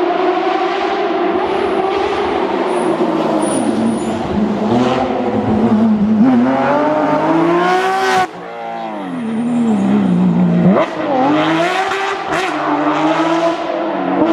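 Porsche 911 GT3's naturally aspirated flat-six engine being driven hard. It pulls up through the revs, lifts off sharply about eight seconds in, and its note falls with a quick throttle blip near the eleven-second mark before it pulls up again.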